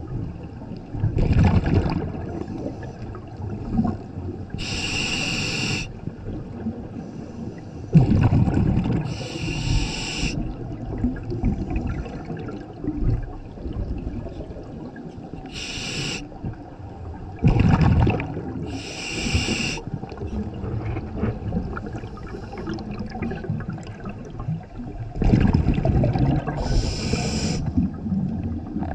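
A scuba diver breathing through a regulator underwater: hissing inhalations alternate with rumbling, bubbling exhalations in a slow cycle of about four breaths.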